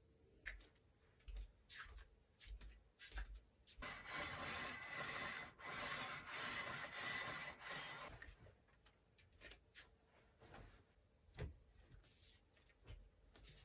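A zebra window blind being pulled up: a steady rubbing noise of about four seconds, starting about four seconds in. Soft scattered rustles and light knocks come before and after it.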